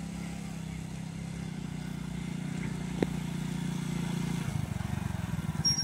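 Small motorcycle engine running in first gear as the bike rides up, its hum steady and slowly growing louder. Near the end the note loosens into separate throbbing beats as it slows, and a short high squeal comes right at the end as it pulls up.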